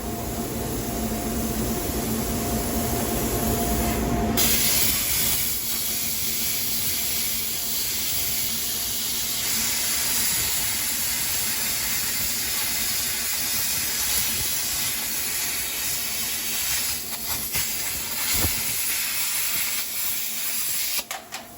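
Plasma cutter cutting a straight line through metal: a loud, steady hiss of air and arc that comes on suddenly about four seconds in and cuts off near the end. Before it, a lower rushing noise with a steady hum.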